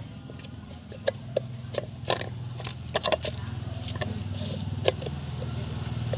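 Vehicle engine idling steadily, with scattered sharp clicks and knocks on top.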